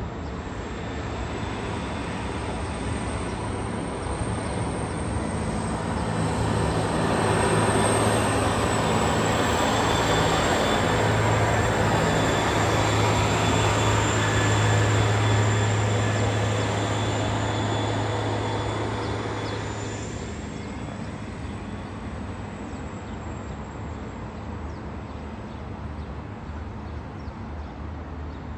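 A work train of yellow on-track maintenance machines, among them a Plasser PTS-62, rolling past on the rails. A steady diesel engine drone and wheel-on-rail rumble build over the first several seconds, stay loud through the middle, and fade away after about twenty seconds.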